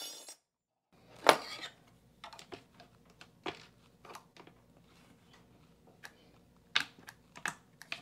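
Scattered clicks and knocks of a latch bypass tool working against the spring latch of a doorknob lock, with the wooden door being pushed against its frame. A sharp knock about a second in is the loudest, followed by irregular lighter clicks.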